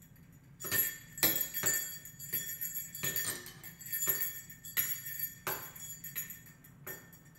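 A strap of dog potty-training bells hanging from a door handle, jingling in short irregular shakes about once a second.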